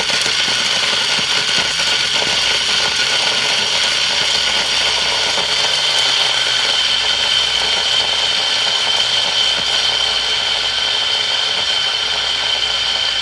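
Magic Bullet personal blender running at full speed, crushing leftover rotis into coarse crumbs: a loud, steady motor whine.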